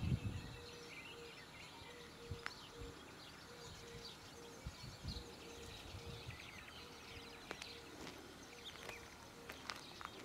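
Quiet outdoor ambience: faint bird chirps from the trees, a short low tone repeating about twice a second, and a few scattered clicks and knocks, with a heavier thump right at the start.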